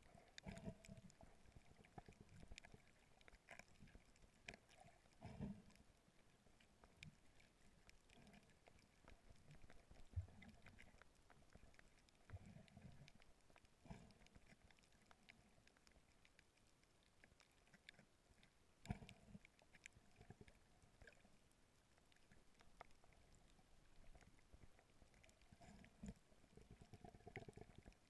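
Faint underwater sound: scattered small clicks and crackles, with a few louder muffled thumps.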